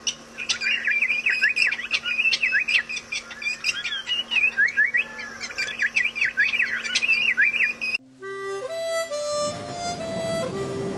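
A bird calling in quick runs of short sweeping notes over a faint steady hum. About eight seconds in, the calls cut off abruptly and music with long held notes takes over.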